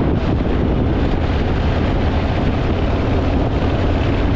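Harley-Davidson Fat Boy V-twin running steadily at cruising speed, with wind rushing over the microphone.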